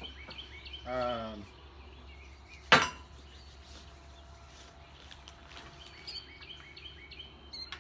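A single sharp knock about three seconds in as small boxes of sawmill nuts and bolts are handled among the cardboard packing, with birds chirping in the background.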